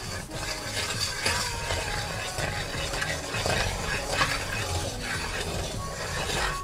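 A wooden spatula stirring and scraping a lump of butter around a hot skillet as it melts and sizzles, with many short scrapes against the pan.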